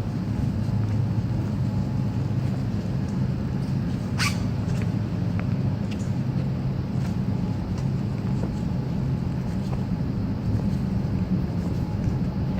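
A steady low mechanical hum, with one short high squeak about four seconds in.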